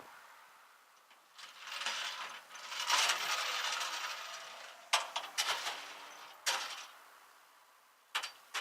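Metallic rattling for a few seconds, then several separate sharp clicks.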